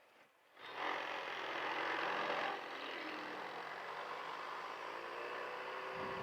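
Honda Silver Wing scooter pulling away from a stop: after a quiet half second the engine comes up suddenly, loudest for the next two seconds, then runs on steadily with wind noise. It is the rider's attempt to catch an intermittent noise heard on take-off, which he says is usually a lot more crunch than this.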